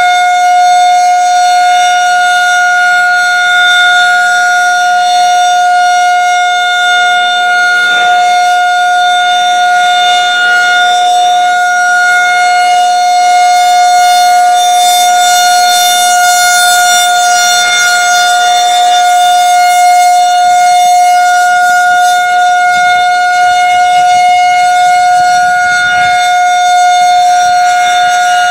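Federal Signal 2001 rotating outdoor warning siren sounding a steady alert tone: one held pitch that never glides, rising and falling slightly in loudness as the horn turns on its pole.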